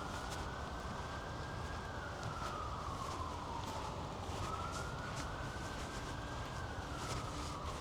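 Siren wailing in a slow rise and fall, climbing and sinking about every four seconds, with footsteps clicking along.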